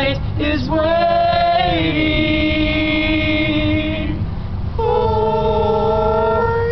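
Four-voice a cappella doo-wop group singing, holding long sustained harmony notes with a short downward slide about two seconds in. The singers break off for about half a second near the four-second mark, then come in on another held chord.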